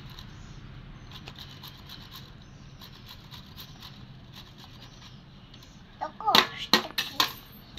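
Peeled raw mango being grated on a flat stainless-steel hand grater over a steel plate: faint, repeated rasping strokes. About six seconds in comes a brief loud stretch of sharper strokes with a voice.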